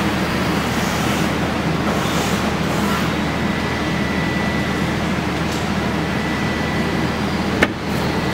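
Steady mechanical drone of running machinery, with a low hum and a thin steady high tone. One sharp click comes near the end.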